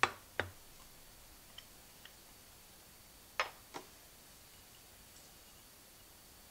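Hard clicks and knocks of kitchenware being handled and set down on a counter: two near the start, a couple of faint ticks, then two more clicks about three and a half seconds in.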